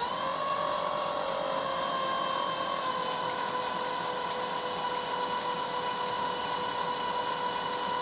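Starter motor cranking an International DT466 diesel engine with a steady whine for about eight seconds, the engine not catching, then winding down at the end. It is a crank-no-start: fuel delivery pressure struggles to climb above the 80 psi the engine needs to start.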